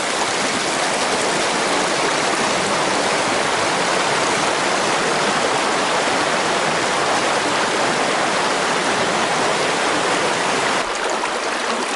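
Shallow mountain stream rushing over rocks in a riffle: a steady, even rush of water, a little quieter near the end.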